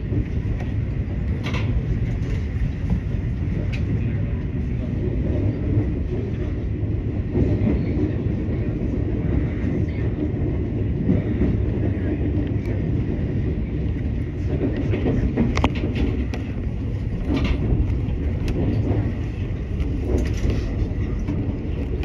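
Electric train running slowly on its rails, heard from behind the driver's cab: a steady low rumble with occasional sharp clicks and knocks from the wheels and track.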